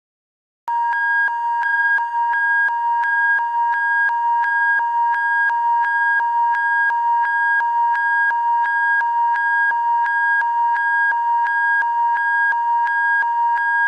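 A steady electronic alarm tone, two pitches sounding together, starting a moment in and held unbroken, with a faint regular ticking about three times a second.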